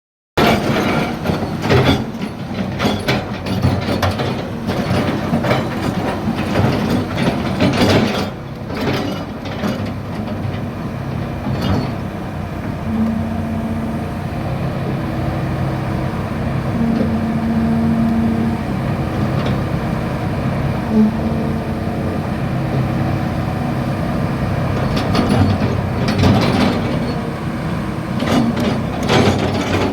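Hitachi Zaxis 210F-5G excavator working: its diesel engine runs with a steady hum under many metallic clanks and rattles, which are thickest in the first few seconds and again near the end.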